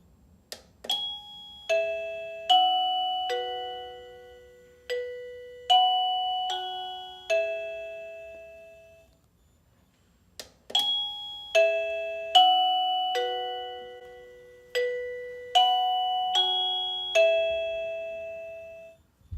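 Wireless doorbell receiver playing an electronic chime tune of eight ringing notes, about one note every 0.8 s, each note dying away. The tune plays twice, and each time it starts just after a short click.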